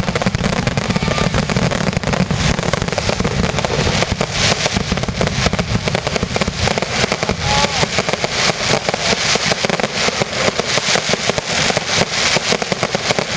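Fireworks going off in a dense, continuous barrage of rapid crackles and pops, many per second.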